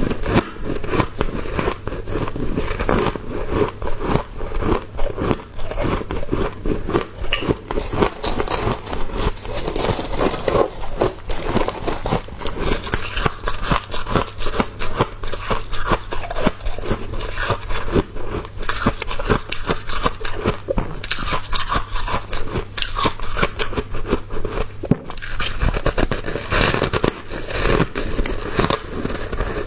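Close-up chewing and crunching of small, soft, powdery ice chunks: a dense run of crackles and crunches with no pause.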